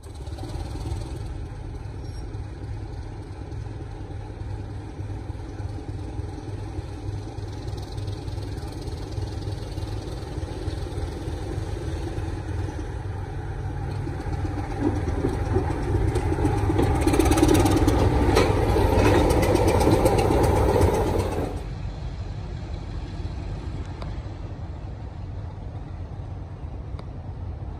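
Class 25 diesel locomotive running past on its engine, the rumble growing louder as it nears and loudest from about two-thirds of the way in. It then cuts off abruptly to a quieter, steadier engine sound from further away.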